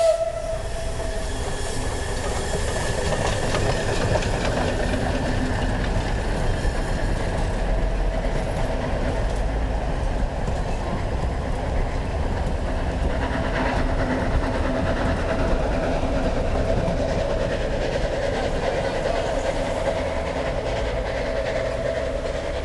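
Steam train passing, its locomotive and passenger coaches rolling along the track with a steady sound that eases slightly near the end.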